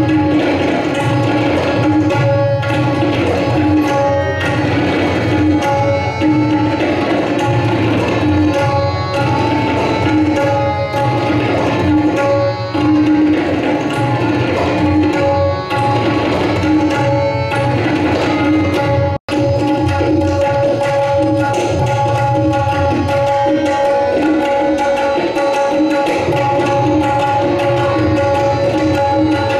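An ensemble of tabla drums played in unison over a harmonium lehra, the harmonium holding a steady repeating melody beneath the drum strokes. The audio drops out for an instant about nineteen seconds in.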